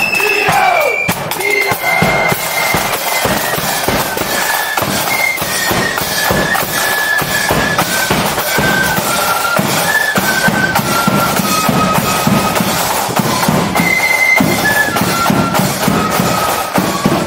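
Parade marching band playing a tune: a high melody of held notes over steady drumming.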